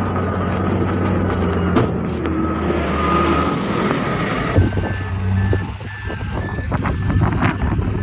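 Heavy diesel engines of a bulldozer and a dump truck running steadily. About halfway through, a truck's reversing alarm starts beeping evenly, about twice a second, with a few sharp knocks mixed in.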